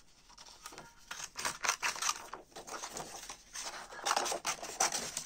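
Small scissors cutting through sheets of printer paper in a run of short, crisp snips, with the paper rustling as the sheet is turned.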